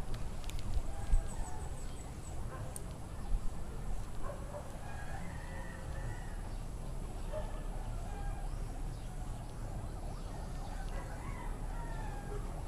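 Domestic chickens calling faintly, with a rooster crowing, over a steady low rumble.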